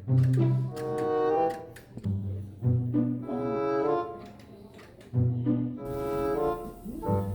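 Background music with low bowed strings playing short repeated phrases of notes.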